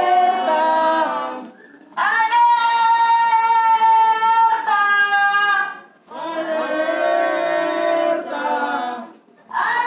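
Several voices singing together unaccompanied, in long held phrases with short breaths between them.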